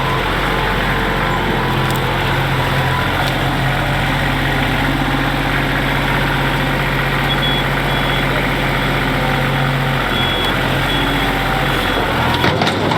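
Engine of a stuck vehicle running steadily under load as the driver tries to drive it free; its steady note changes about ten seconds in. A few short, high electronic beeps sound in the later seconds.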